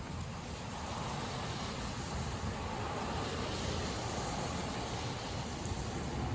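A car driving in rain: steady low road rumble and the hiss of tyres on a wet road.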